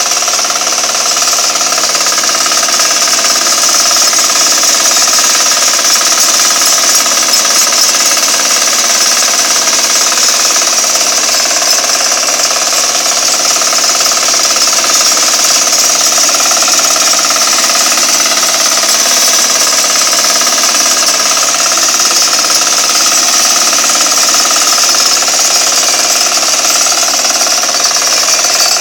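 Walk-behind hand tractor's small yellow engine running steadily under load as the machine works through the soil and stalks. Loud and even throughout, with no change in engine speed.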